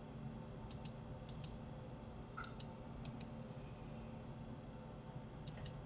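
Computer mouse clicking faintly: about five pairs of quick clicks over a low steady hum.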